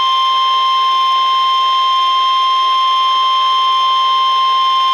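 NOAA Weather Radio warning alarm tone, the 1050 Hz tone that precedes a warning. It is heard as one loud, steady, unbroken tone from a weather radio, here announcing a severe thunderstorm warning.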